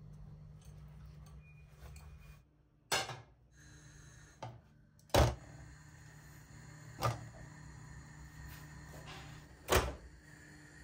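Sharp knocks and clacks of kitchenware being handled and set down, five separate strikes over several seconds, the loudest about five seconds in. A low steady hum runs under the first couple of seconds.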